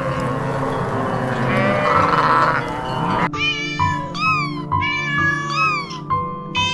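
A herd of goats bleating over a steady hiss of falling rain, then, after about three seconds, young kittens mewing in a run of high, rising-and-falling calls over background music with a pulsing beat.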